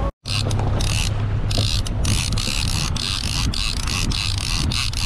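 Large conventional saltwater fishing reel being cranked, its gears giving a rhythmic rasping whir about two to three times a second with each turn of the handle, over a low steady hum.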